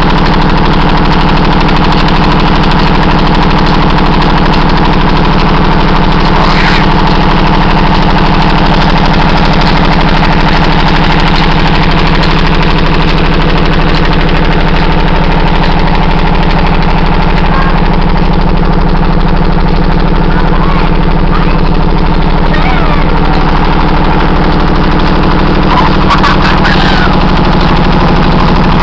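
Engine of an irrigation tubewell pump running loud and steady with a rapid, even beat, while water gushes from the outlet pipe into the tank.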